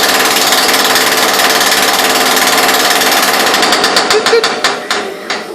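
Jackhammer hammering rapidly and steadily, then winding down into separate, slower strikes about three and a half seconds in and stopping near the end.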